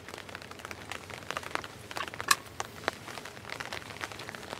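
Scattered light taps and crackles at irregular intervals, with one sharper tap a little past two seconds in.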